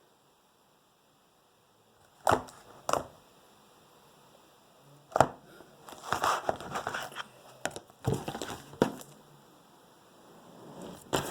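Slime being squeezed and poked by hand, giving sharp pops and crackly squishes. There are two pops about two seconds in and another about five seconds in, then a run of crackling pops, and one more pop near the end.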